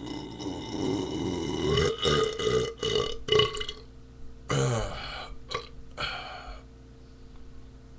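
A man's long, drawn-out belch that breaks up into a few choppy pulses near its end, followed about a second later by a second, shorter belch that starts with a falling pitch.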